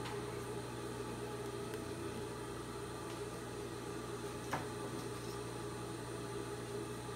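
Steady background room noise: a low hum under a faint hiss, with one short click about four and a half seconds in.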